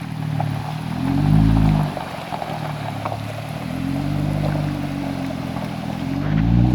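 Jeep engine revving in three surges, each rising and then falling in pitch, over a steady rushing hiss.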